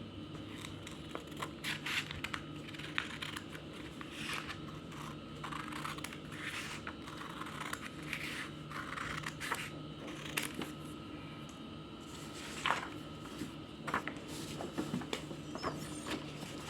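Scissors cutting a paper printable: irregular snips and paper rustling, over a faint steady hum.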